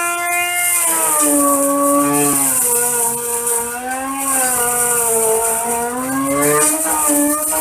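Electric corn grinding mill running with a continuous whine over a high hiss, its pitch sagging and recovering every couple of seconds as corn is poured into the hopper.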